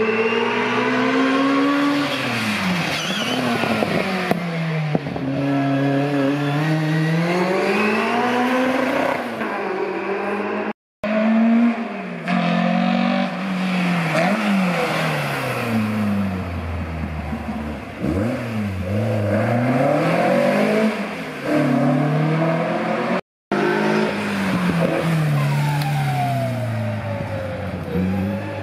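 Hillclimb competition cars accelerating hard up the course, the engine note climbing and dropping back again and again as each car shifts up through the gears. The sound breaks off abruptly twice as one car's run gives way to the next.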